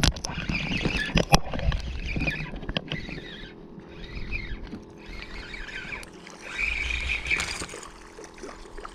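Close handling noise from hands working a spinning reel and rod right at the microphone: uneven knocks, clicks and scratchy rubbing.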